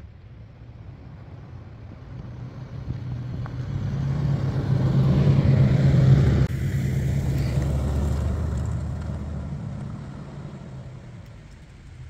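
Jeep Wrangler TJ's 4.0-litre straight-six engine as the Jeep drives past, growing louder to a peak about halfway through, then fading away.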